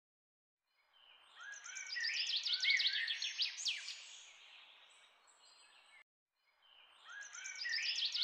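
Birdsong sound effect: several songbirds chirping and whistling in quick, overlapping phrases. It fades out about five seconds in, and the same recording starts over about two seconds later.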